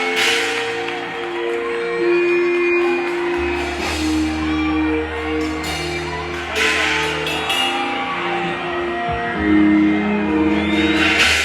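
Loud music played over a sound system, with held melody notes and a deep bass that comes in about three and a half seconds in. A few short cymbal-like crashes sound, one at the start, one midway and one near the end.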